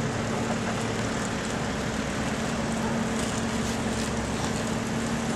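Tractor engine running at a steady speed, a constant hum over a broad rushing noise.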